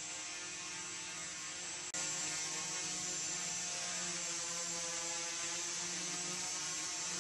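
Hexacopter's six propellers and motors humming steadily in hover, a dense stack of steady tones topped by a high whine. A brief break about two seconds in, after which it is a little louder.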